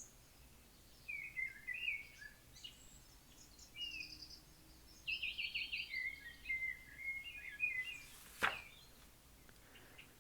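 Songbirds chirping and trilling, with a quick run of repeated notes about five seconds in. A single brief whoosh comes about eight seconds in.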